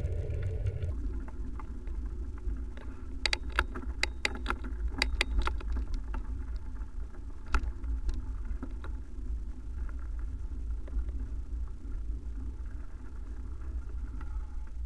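Steady low wind and road rumble from riding a bicycle on paved road, heard on a bike-mounted camera. A louder hum cuts off about a second in. A run of sharp rattling clicks comes a few seconds in, and one more click falls near the middle.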